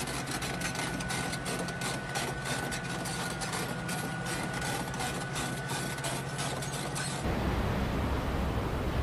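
Mini excavator's diesel engine running steadily at idle. About seven seconds in it gives way to a steady rushing noise.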